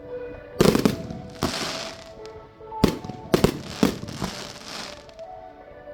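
Fireworks exploding: a run of sharp bangs, a cluster about half a second in and another around three seconds in, each trailed by a crackling hiss. Music plays underneath.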